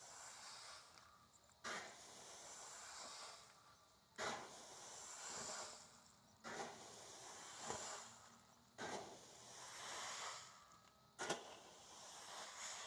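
Coffee being spread out to dry: five even strokes about two and a half seconds apart, each a sharp knock followed by a hissing scrape of the beans.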